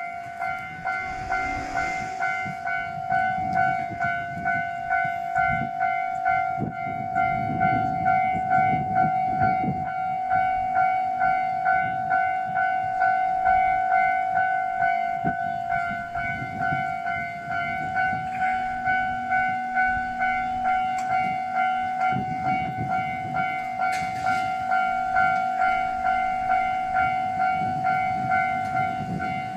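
Railway level crossing warning bell ringing in even, rapid strokes the whole time, over a low rumble that swells and fades. The ringing signals that a train is approaching or passing.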